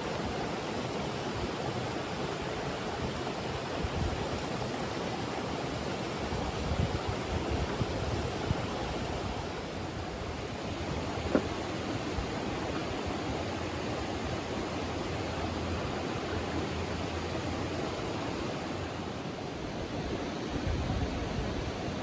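Shallow rocky stream flowing: a steady rush of water, with one sharp click about eleven seconds in.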